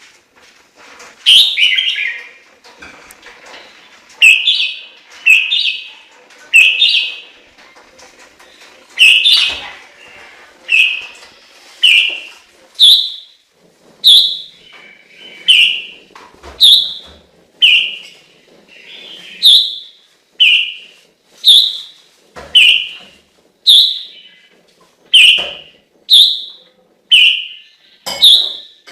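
Chinese hwamei (gabichō) singing: loud, clear whistled notes repeated about once a second, each sweeping upward.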